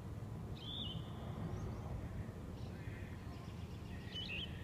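Wild birds calling: short high whistled notes about a second in and again near the end, over a steady low rumble.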